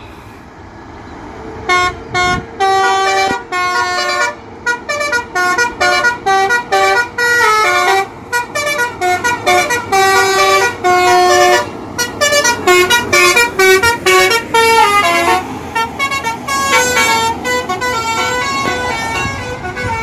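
A bus's multi-tone 'telolet basuri' musical horn plays a fast melody of short, stepping notes, starting about two seconds in and repeating. In the last few seconds the coach's engine and tyres rise under the horn as it drives past.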